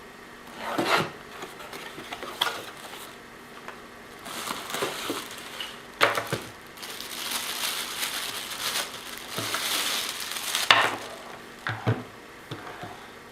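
Cardboard box and packaging being handled and opened: irregular rustling and scraping with several sharp knocks, the loudest about halfway through and again near the end.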